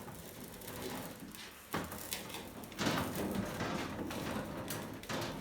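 Knocks and clatter of things being handled and moved about by hand, with a sharp knock a little under two seconds in and a louder clatter about three seconds in.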